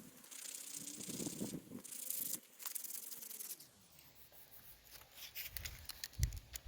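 Hand sanding cured gelcoat with coarse 120-grit sandpaper: a rough, hissing scrape in about three strokes that stops about two and a half seconds in. Quieter handling clicks and a couple of low thumps follow near the end.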